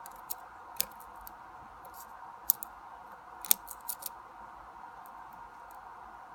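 Small sharp metallic clicks of a lock pick and tension wrench working the pins of a pin-tumbler lock, scattered and irregular, most of them in the first four seconds, over a faint steady hum.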